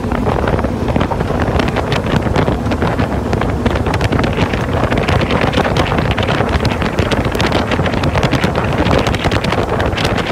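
Gatortail 40+ hp outboard mud motor running steadily at top-end speed, pushing the boat at a constant 27 mph. Heavy wind noise on the microphone lies over it, with constant crackling buffets.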